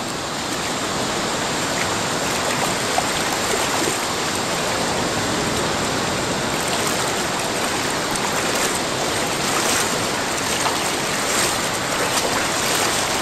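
Shallow sea surf washing in, a steady rushing noise.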